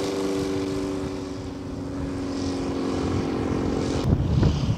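Propeller-driven engine of a large-scale radio-controlled biplane droning in flight, its pitch slowly falling as it passes. About four seconds in the sound cuts abruptly to a gusty rumble of wind on the microphone.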